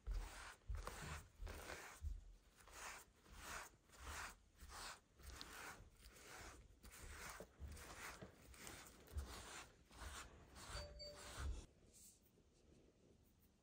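Rubber deshedding glove brushing a cat's fur, a rhythmic rustling scrape at about two strokes a second, with soft bumps of handling; the strokes stop near the end.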